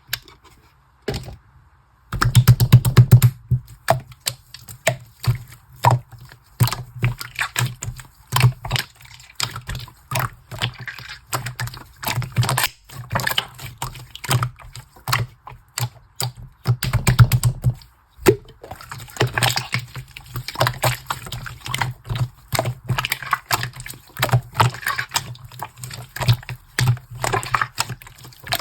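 Slime being squished and kneaded by hand, giving a dense run of wet clicks and pops from trapped air, starting about two seconds in with a brief pause partway through.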